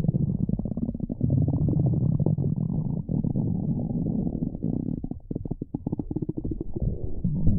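Stomach growling: a long, low, gurgling rumble that breaks into quick separate pulses about five seconds in, then swells again.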